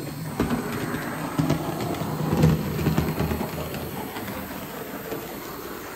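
HO-scale Model Power 0-4-0 steam locomotive running on the layout track: a steady low motor hum with light clicking of its wheels over the rails.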